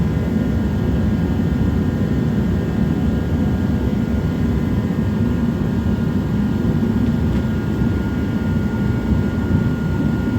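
Forced-air jet heater running: a steady low rushing noise with a few faint, steady high tones over it.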